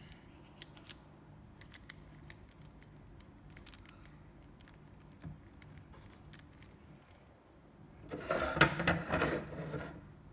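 Faint scattered clicks and rustles from a plastic figure being handled, then a louder stretch of clicking, knocking and rustling about eight seconds in, lasting around two seconds.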